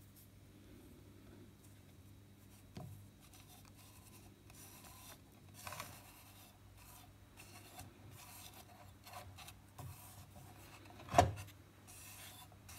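Fingertip rubbing white powder into a crack on a carved ivory tusk: soft, scattered scratching and rubbing, with a sharp knock about eleven seconds in and a fainter one near three seconds. A steady low hum runs underneath.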